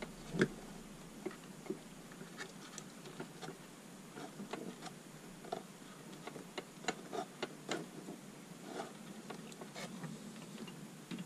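Faint, scattered small clicks and rustles of hands handling thin wires and a small plastic connector on an RC truck body.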